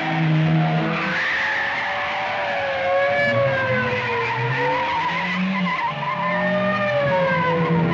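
Car chase: a Fiat 124 saloon's engine revving hard while its tyres squeal in long, wavering screeches as it slides through corners.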